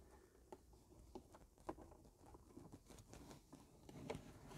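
Faint, scattered light taps and scrapes of cabin air filters being slid into their housing.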